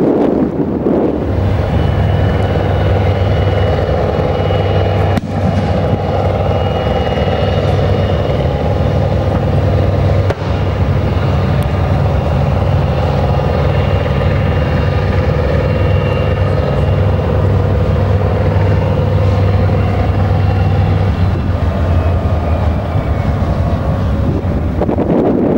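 A heavy military vehicle's engine running steadily, a low drone with a steady high whine over it. It starts about a second in, and the whine shifts slightly in pitch near the end before the sound stops.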